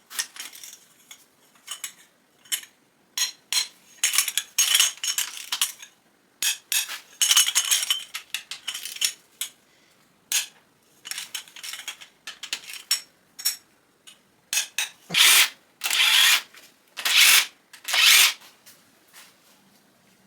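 Hand tools and metal engine parts clinking and scraping irregularly as an LS1 V8's connecting rod caps and bearings are worked on. Near the end come a few longer, louder scraping strokes.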